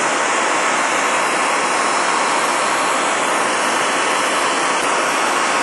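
Handheld blowtorch flame hissing steadily as it heats a coil of spring steel red-hot so the spring can be straightened.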